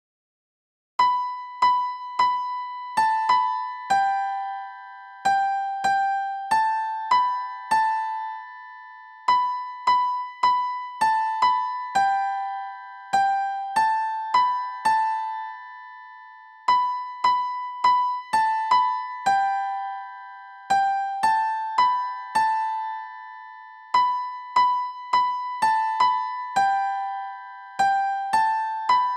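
Keyboard with a piano-like voice playing a hymn tune as a single melody line, one note at a time. Each note is struck and left to fade, with no chords or accompaniment.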